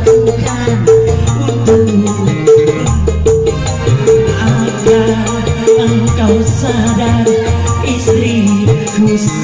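Live dangdut band playing through a PA: kendang hand drums and a Korg keyboard keep a steady, bouncy dance beat, with a man singing into a microphone over it.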